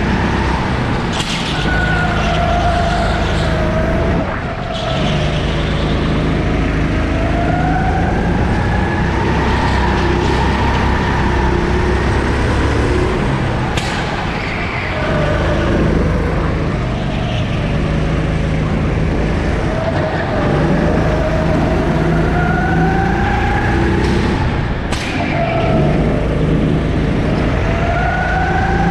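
Sodi 270 cc four-stroke kart engine heard onboard, its pitch repeatedly climbing as it accelerates and dropping as it slows for the corners. A few short sharp noises come through over the engine.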